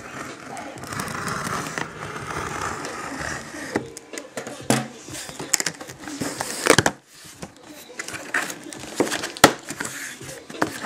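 Plastic wrapping being torn and crumpled off a cardboard laptop box: rustling at first, then sharp, irregular crackles that grow busier in the second half.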